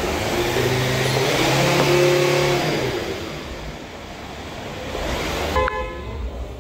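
A motor vehicle's engine and tyre noise swelling to a peak and fading away over about four seconds, as when a vehicle drives past. Near the end there is a short ringing clink.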